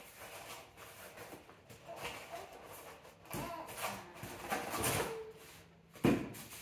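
A small cardboard box being handled and opened by hand, its flaps rustling and scraping in irregular bursts, with one sharp thump about six seconds in.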